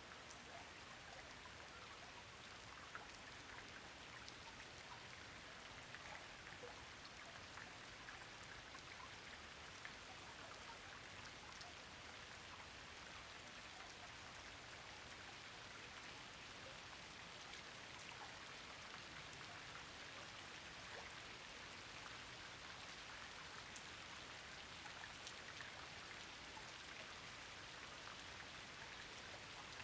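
Steady, faint rain: an even patter of many small drops, with scattered sharper drop ticks.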